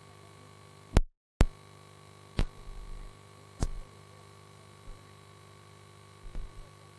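Sharp clicks and knocks over a steady electrical hum. The sound cuts out completely for about half a second between two loud clicks about a second in, and two more knocks follow, then a few faint low thumps.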